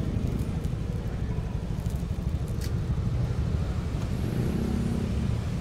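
Suzuki Address scooter's single-cylinder engine running at low speed as the scooter rolls slowly, a steady low rumble.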